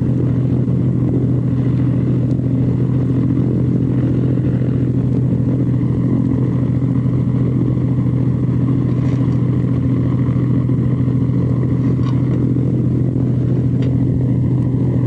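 A light aircraft's piston engine and propeller droning steadily in flight, heard from inside the cabin.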